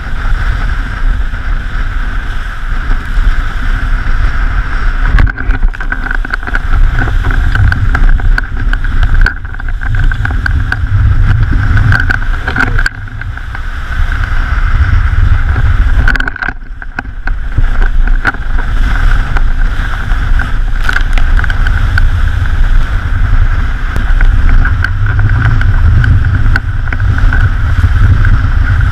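Wind buffeting the microphone and water rushing along the hull of a KHSD 24 trimaran sailing fast upwind, a loud steady rush with a constant high hum running through it, easing briefly about halfway through.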